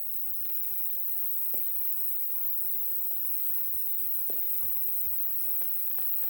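A high, steady insect chorus of crickets trilling at night, with a few faint, distant firework bangs scattered through it.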